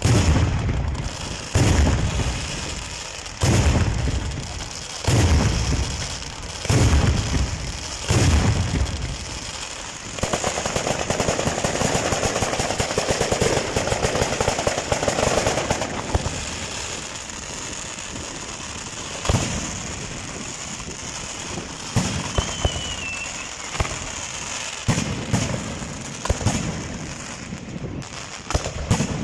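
Fireworks display: a string of loud booms about every second and a half, then a long dense crackling barrage about ten seconds in that thins out into scattered pops and bangs.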